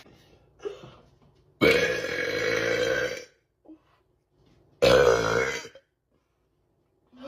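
A woman burping twice: one long burp of about a second and a half, then a shorter one about three seconds later.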